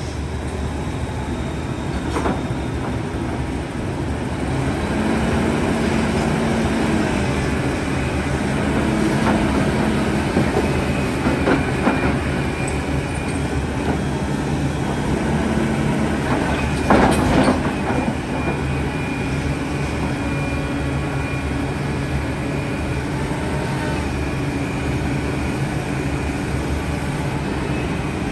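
Heavy excavator working: a steady low engine drone with whining tones and several metallic clanks, the loudest about seventeen seconds in.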